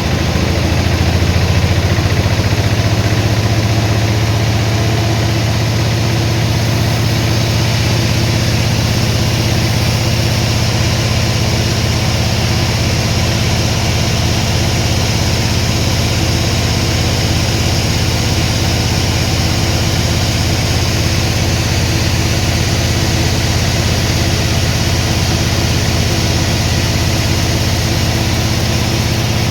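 Sawmill machinery running steadily, a constant low engine hum with no change in speed.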